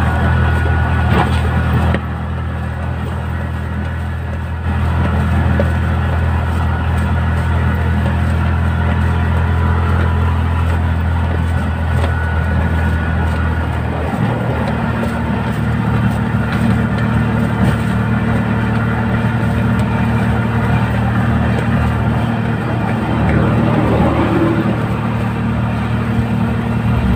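Vehicle engine running steadily under way, heard from inside the cab with road noise. Its low note shifts about halfway through.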